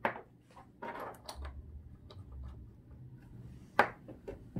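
Light clicks and knocks of small paint bottles being handled on a wooden tabletop, with a brief rustle about a second in and a sharper knock near the end, over a low hum.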